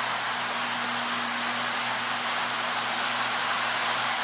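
Electric model train running on its track: a steady rolling hiss of wheels on the rails and motor whir, with a steady low electrical hum underneath.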